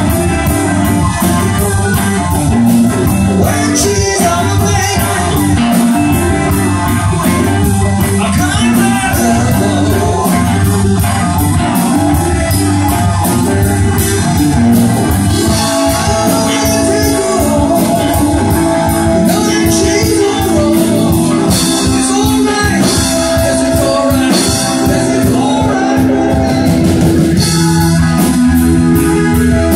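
Live rock band playing loudly: electric bass guitar and electric guitar over a steady drum beat.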